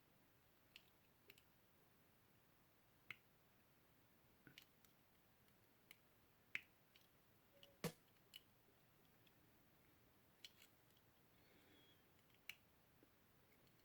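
Near silence broken by faint, irregularly spaced clicks and taps from a crimp connector and hand tools being handled on 16 gauge wire, the sharpest click about eight seconds in.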